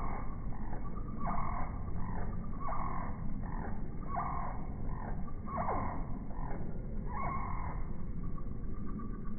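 Bird calls slowed down to a deep pitch, repeating about every second and a half, some falling in pitch, over a low rumbling hum.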